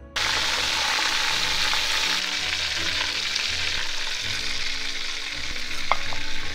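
Hot oil sizzling steadily as a whole fusilier fish is deep-fried and lifted out of a wok, with a light click about six seconds in.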